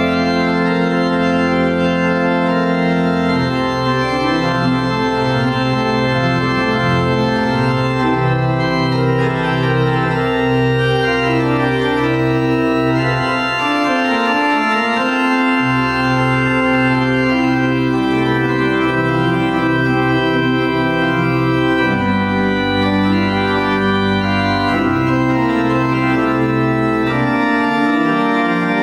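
Pipe organ playing the closing voluntary: sustained full chords over a bass line of evenly repeated pedal notes, which drops out briefly about halfway through.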